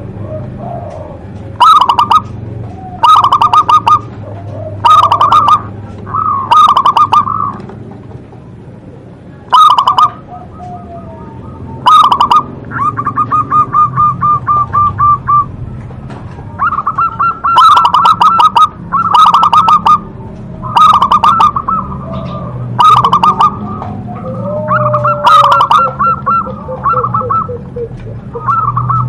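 Zebra dove (perkutut) cooing: a dozen or so loud short phrases of rapid staccato notes, each about a second long, repeated every second or two, with one longer, steadier run about halfway through.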